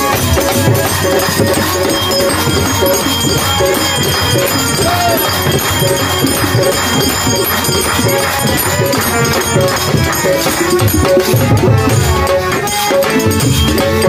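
Live Baul folk music: a harmonium playing held, reedy chords over a dhol drum beaten by hand, with small rattling hand percussion keeping the beat.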